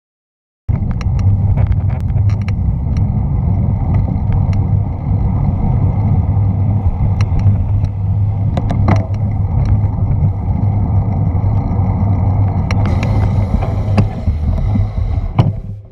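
Wind rushing over an action camera's microphone and road rumble while riding a bicycle through city traffic, with scattered sharp clicks and rattles. It starts under a second in and drops away shortly before the end as the bike slows to a stop.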